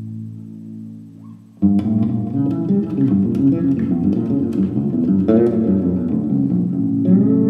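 Fretless Fender Jazz bass guitar playing a gypsy-jazz line: held notes die away, then about a second and a half in a quick run of many short plucked notes starts. Near the end a note slides up in pitch and is held.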